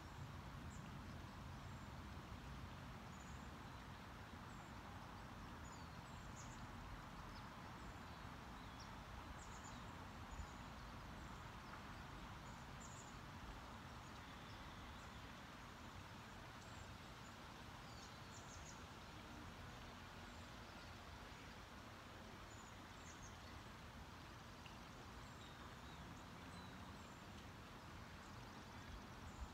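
Quiet outdoor ambience: a steady low background hum with many short, high-pitched bird chirps scattered through it.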